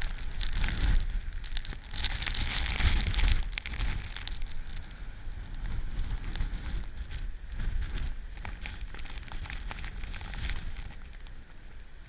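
Blizzard wind buffeting the microphone over heavy storm surf rushing up the beach. The sound is loudest in the first three and a half seconds and eases toward the end.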